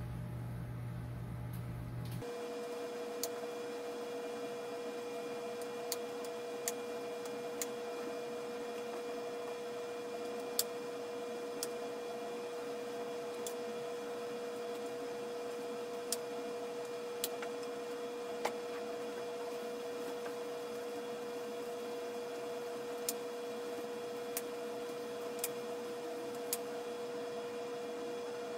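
A steady hum with a dozen or so sharp clicks scattered irregularly through it. About two seconds in, the hum changes abruptly from a low one to a higher, steady one.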